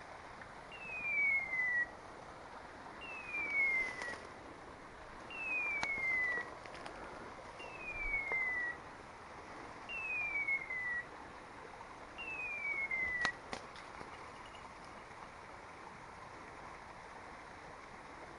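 Electronic beeper collar on a pointing dog sounding its point-mode call: six identical falling whistles, each about a second long, one every two seconds or so, then stopping. The call signals that the dog is standing motionless on point.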